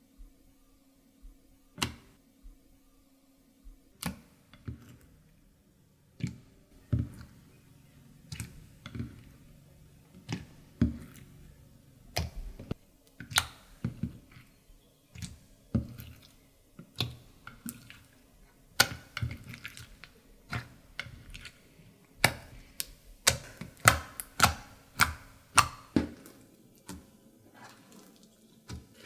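Clear slime being mixed and squeezed, giving irregular wet clicks and pops that come faster and louder in the second half.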